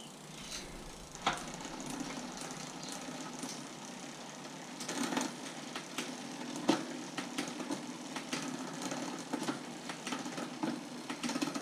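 Bicycle drivetrain turned on a workstand: the chain running over the rear cassette and derailleur with the rear wheel spinning, a steady whirr broken by sharp clicks.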